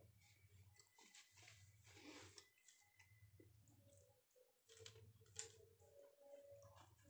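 Faint eating sounds from rice and fried onion stalks eaten by hand: soft chewing and small mouth clicks, with fingers working the rice on the plate.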